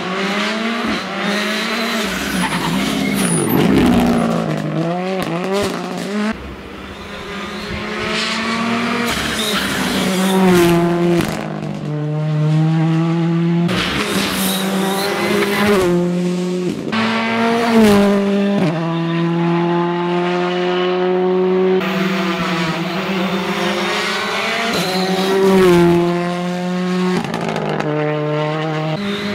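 Ford Fiesta R5 rally cars driven hard, their engines revving high, the pitch climbing and then dropping back sharply again and again. The sound cuts abruptly from one car to the next every few seconds.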